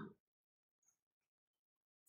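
Near silence after the tail of a spoken word, with only very faint strokes of chalk writing on a blackboard.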